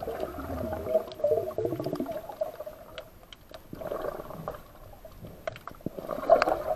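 Muffled underwater gurgling and bubbling picked up by a submerged camera, with a warbling tone and short falling glides in the first two seconds, scattered small clicks, and two swells of burbling about four and six seconds in.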